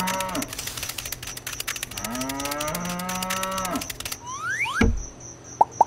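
A cow mooing twice, each call about a second and a half long, over a fast rattling clicking. About four seconds in, the clicking stops, two quick rising whistles sweep up and a low thud lands. Near the end another moo begins with a slower run of evenly spaced clicks.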